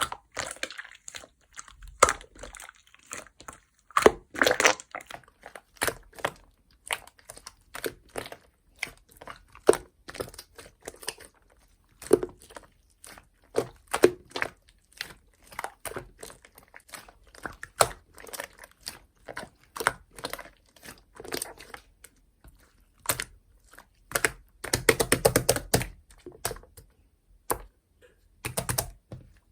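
Large, milky-white, chewy slime worked by hand: irregular sticky clicks and air-pocket pops, denser around four seconds in and again near the end.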